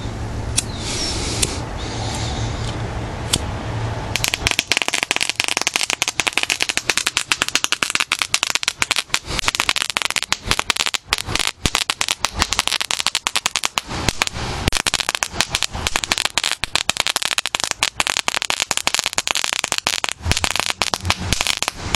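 Universal 'Rub It Crackle' friction-lit crackling stick (white-phosphorus item), held in the fingers: a few seconds of rough rubbing and handling noise with odd clicks, then about four seconds in it catches and crackles continuously, a dense stream of tiny rapid pops.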